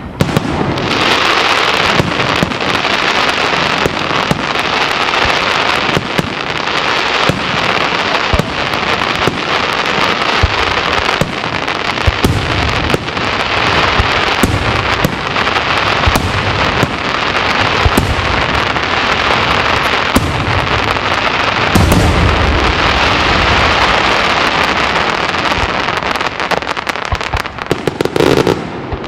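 Daytime display fireworks going off in a dense, continuous barrage of rapid crackling and popping, with sharper loud bangs scattered throughout. Heavier deep booms come about three-quarters of the way through, and the barrage thins to separate bangs near the end.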